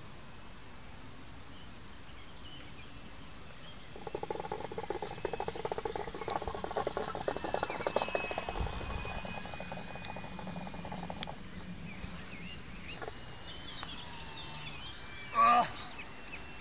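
Small RC model aeroplane's propeller and motor buzzing as it flies past, starting suddenly about four seconds in and dying away about eleven seconds in. A short, loud pitched call comes near the end.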